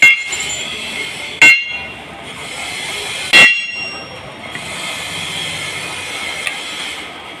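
Three sharp metal-on-metal strikes, each ringing briefly, spaced about one and a half to two seconds apart, over a steady mechanical din of workshop machinery.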